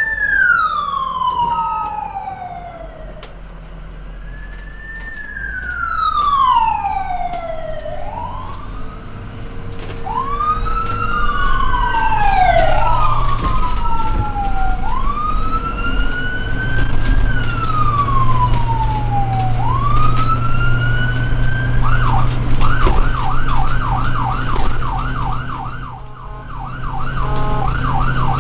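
Ambulance siren wailing in slow rising and falling sweeps, at times two sirens overlapping. After about twenty seconds it switches to a fast yelp of about four to five sweeps a second. A low vehicle engine hum runs underneath.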